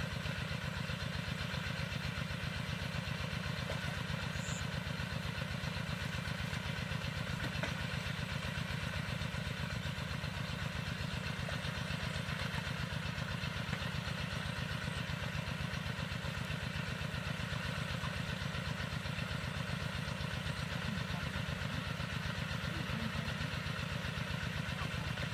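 A small engine running steadily at an even speed, a fast low pulsing that does not change.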